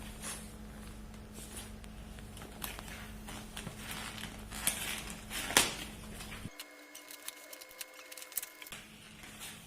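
Gift wrapping being handled and opened: irregular rustling and crackling of paper and packaging, with a sharp click about five and a half seconds in.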